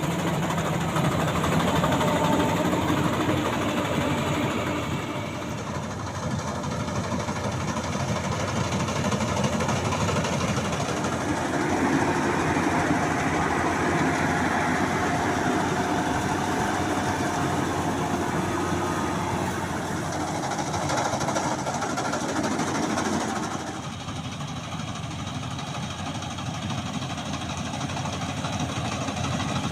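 Maxxi Bimo 102 rice combine harvester's engine running steadily under work, its tone shifting and its level dipping briefly about five seconds in and again near the end.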